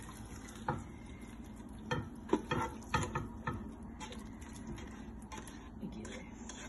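A spatula scraping and knocking against a pot as chicken curry is scooped out into a serving dish: a handful of scattered knocks, most of them in the first few seconds, then quieter scraping.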